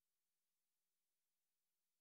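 Silence: the sound track drops to nothing.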